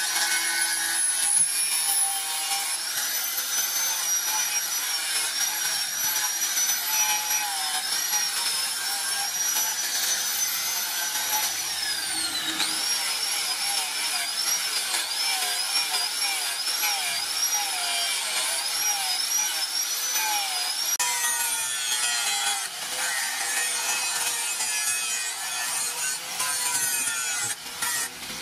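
Electric angle grinder with a sanding disc grinding the steel blade of a knife forged from a bike disc brake rotor. Its high whine wavers in pitch as the disc is pressed into the metal and dips sharply once; in the last third the whine gives way to a rougher grinding rasp.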